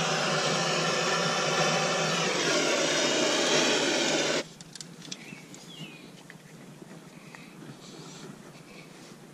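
Hand-held propane torch burning with a steady roar while lighting wax fire-starter cubes in the smoker's firebox, then shut off abruptly about four seconds in. After that only a faint background with a few small clicks remains.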